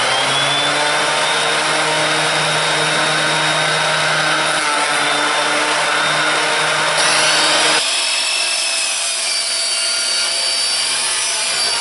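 Benchtop jointer running with a steady motor whine while a driftwood log is fed across its cutter head. About eight seconds in the sound changes to a Craftsman sliding miter saw whining as it cuts into a hollow log.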